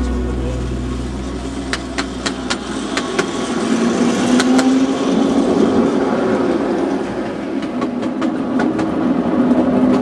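Small ride-on locomotive on 5-inch gauge miniature railway track, running with a steady mechanical hum and a scattering of sharp clicks. A music track fades out at the start.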